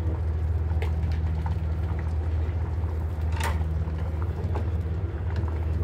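Rice congee boiling hard in a clay pot, bubbling and popping over a steady low hum. A single sharp click comes about three and a half seconds in.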